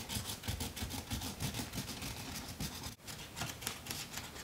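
Quick, repeated rubbing strokes on cardboard, many to the second, as the box is pressed and creased by hand.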